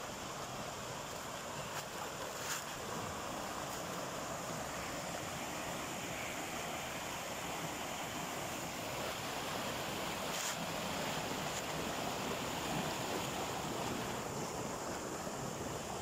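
Small waterfall and a rocky forest stream running: a steady rush of falling and flowing water.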